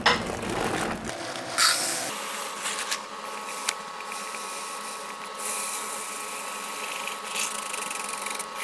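Plastic poly pellets poured from a cup through a funnel into a sock, a steady rustling pour with a few light ticks, after fabric rubbing as the filled sock is squeezed and handled.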